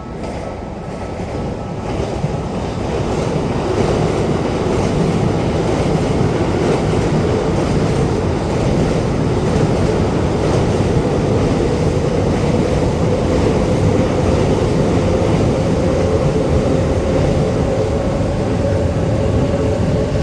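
A Keikyu Line train running past close by: a loud, steady rumble of wheels on rail that swells over the first few seconds, with a whine that rises slowly in pitch through the second half.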